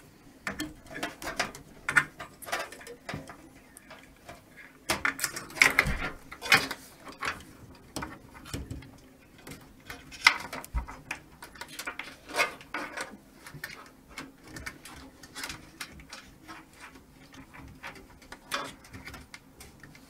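Hands handling power-supply cables and plugging in the rear case fan's lead inside a PC case: irregular clicks, scrapes and rustles of plastic connectors and wires against the case, busiest about five to seven seconds in.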